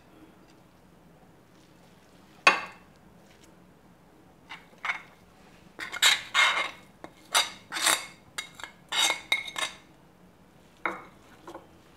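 A metal spoon scraping and clinking against a ceramic plate and a glass baking dish while soft coconut barfi mixture is scraped off the plate. There is a sharp knock about two and a half seconds in, a busy run of clinks and scrapes from about four to ten seconds, and two more clinks near the end.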